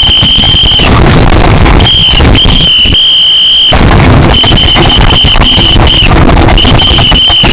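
Loud, harsh, distorted high-pitched alarm tone sounding in five blasts of uneven length, over dense noise.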